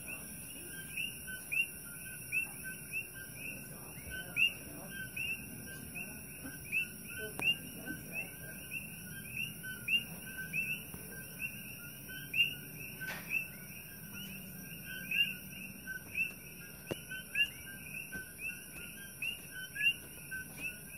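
Chorus of coquí frogs: many overlapping two-note calls, a short lower note followed by a higher rising one, repeating several times a second, over a faint steady high whine.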